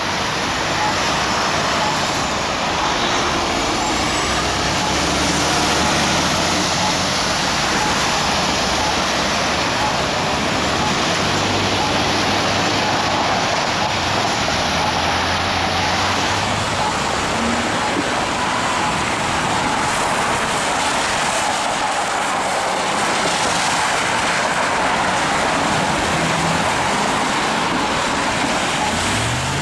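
Road traffic passing through an intersection: cars and a box truck driving by, their tyres hissing on wet pavement over a low engine hum that swells and fades as each vehicle passes.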